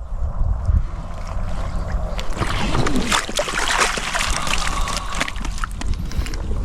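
Water splashing and sloshing in a stream, loudest a few seconds in, over a steady low rumble.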